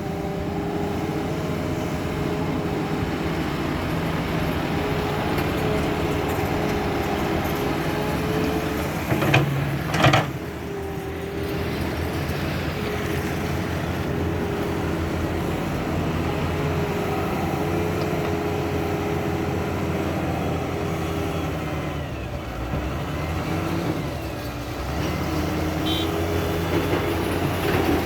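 Heavy excavator's diesel engine running steadily under load, with a low rumble and held tones that waver a little. Two sharp, loud knocks come about nine and ten seconds in.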